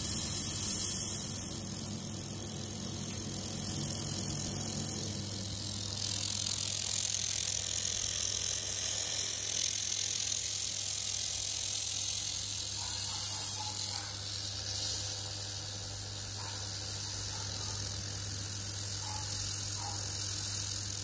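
Datyso 1000 W handheld fiber laser welder at work on a stainless steel tube joint: a steady high hiss from the welding head, over a low steady hum from the laser unit. The hiss grows louder about six seconds in.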